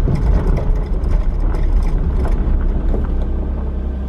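Steady car cabin noise while driving: low engine and road rumble with tyre and wind hiss.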